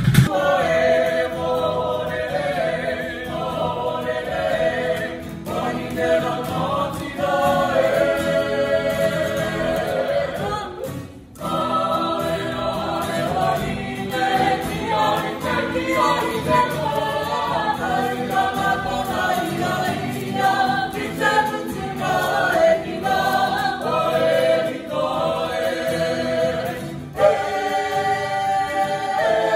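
A mixed Māori group singing together in harmony to an acoustic guitar, breaking off for a moment about eleven seconds in.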